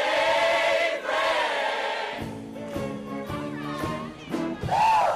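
Show choir singing a held chord, then the backing band playing short chords, with a single voice singing in near the end.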